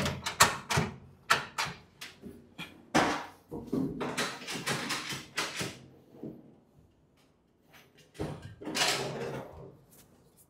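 Metal filing-cabinet drawers being handled and slid on their steel runners: a quick run of knocks and clatters, then two longer sliding scrapes with a quiet gap between them. A loose metal part clinks about inside the cabinet body.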